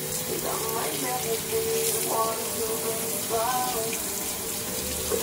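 Water from a bathroom tap splashing steadily onto a rugged waterproof Bluetooth speaker held under the stream. The speaker keeps playing music through the splashing, showing that it still works while wet.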